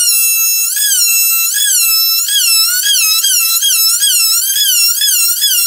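Oscillating saw cutting a deep groove into a wooden boat plank, giving a loud, high whine whose pitch wavers up and down about two to three times a second as the blade bites and eases in the wood.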